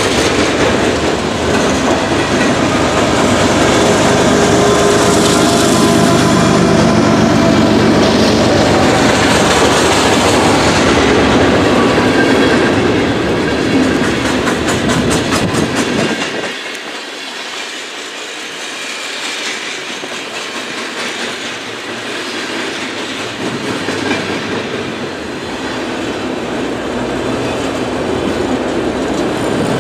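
Freight cars of a long freight train rolling past, with a steady clickety-clack of wheels over the rail joints. A deep rumble under it drops off sharply about halfway through.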